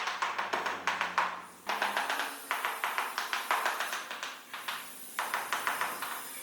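Rapid repeated tapping on ceramic floor tiles, several strokes a second in short runs with brief pauses, as a tile is tapped down into its mortar bed.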